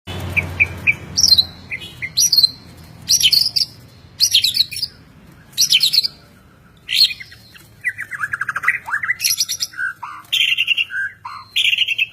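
White-rumped shama (Medan-type murai batu) singing: a run of short, varied phrases of clear whistles and fast chattering trills, separated by brief pauses. A low hum sits under the first couple of seconds.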